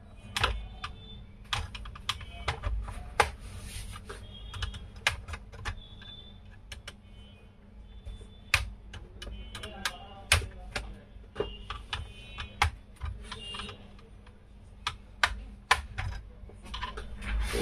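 Scattered, irregular sharp clicks and taps of hard plastic as the laptop's case and keyboard deck are handled and pried at the edges.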